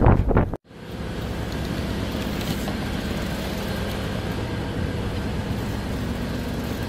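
Wind buffeting the microphone, cut off abruptly just over half a second in; then a steady low engine hum over a haze of wind noise.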